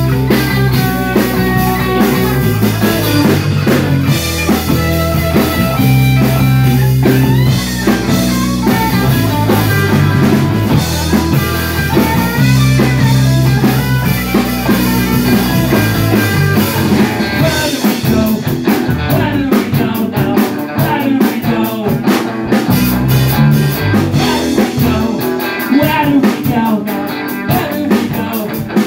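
Live blues-rock band playing: electric guitars over bass notes and a drum kit, the lead guitar playing lines with bent notes, and the drums hitting harder in the second half.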